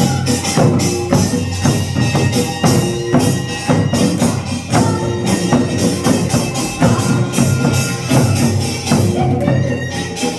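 Korean traditional percussion music for the Jindo drum dance: fast, dense drum strokes with a held melody line sounding over the rhythm.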